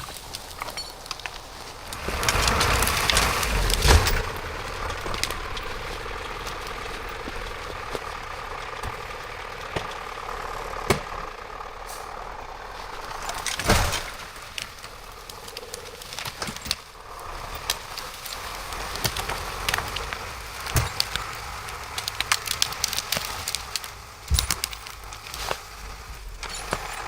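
A machine's engine running steadily, with scattered knocks and cracks. It is loudest between about two and four seconds in, with a sharp knock near the middle.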